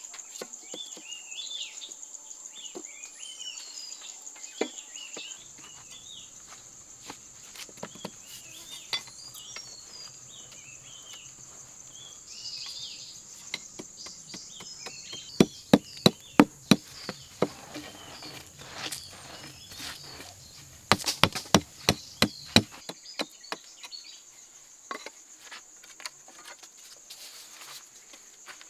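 A steady high insect drone with birds chirping. Near the middle come two quick runs of about half a dozen sharp knocks each, and a few single knocks elsewhere, as wooden poles are struck.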